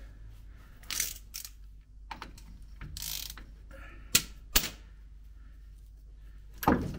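Hand tools working the last bolt of an MB-Trac's PTO bearing bracket: irregular metallic clicks and short scrapes, with two sharp clicks about four seconds in and a louder knock near the end.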